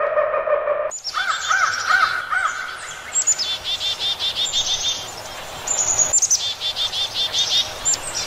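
A held tone for about the first second, then many birds calling in a recorded jungle soundscape: runs of quick repeated chirps and whistles, high and low, overlapping throughout.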